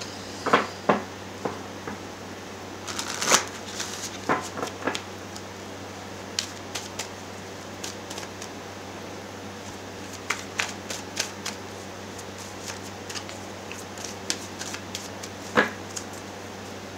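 Tarot cards being shuffled and handled by hand: a string of irregular quick snaps and riffling flutters, with louder bursts about three seconds in and again near the end.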